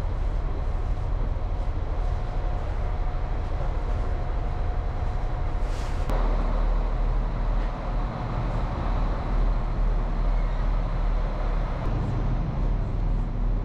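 Steady low rumble of an idling diesel train at a station platform, with a short hiss about six seconds in.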